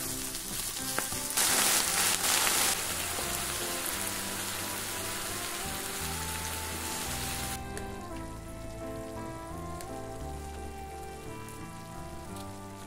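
Food sizzling in a hot frying pan, with a louder burst of sizzling about a second and a half in that lasts about a second. The sizzling cuts off suddenly about seven and a half seconds in, leaving soft background music.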